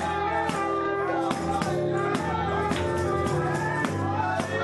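Live gospel music: keyboard chords over a bass line, a tambourine struck on the beat, and choir voices singing.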